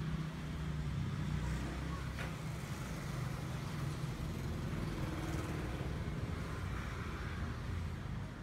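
A motor vehicle's engine rumbling steadily, the low sound of street traffic, with a single sharp click about two seconds in.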